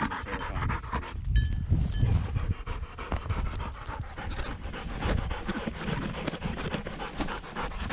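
A dog panting close by after a retrieve, with rustling and handling knocks throughout.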